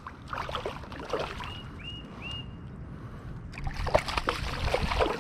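Water splashing and sloshing as a hooked bass thrashes near a small boat, with the loudest splashing near the end. Three short chirps sound in the middle.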